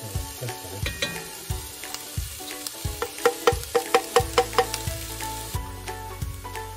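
Chopped onion sizzling in hot fat in an enameled pot as it is scraped in from a plastic food processor bowl with a spatula, with a quick run of sharp taps about three seconds in. Light background music.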